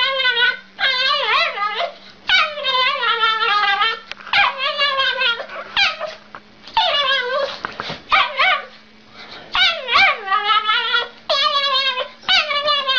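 Small dog howling in a run of high, wavering cries, each one to two seconds long with short breaks between them.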